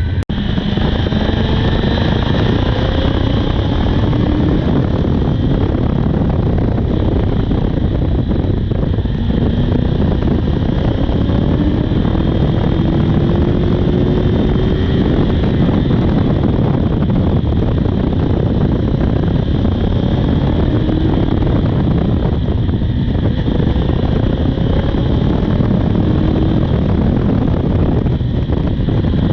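A 2009 Honda CB400's inline-four engine running on the move, its pitch rising slowly and settling several times, under heavy rushing wind noise.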